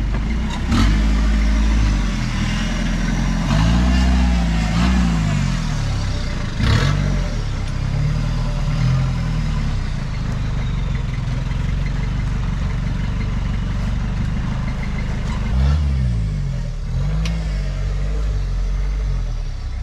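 Off-road 4x4 truck engine revving up and falling back several times as it works over rough ground, with a few sharp knocks from the vehicle, the loudest about seven seconds in.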